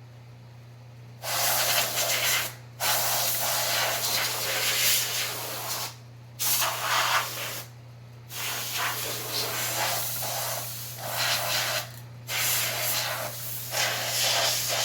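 Can of compressed air sprayed in a series of loud hissing blasts, about six, to clean the fan, over the steady hum of a Harbor Breeze Summit ceiling fan motor running on medium.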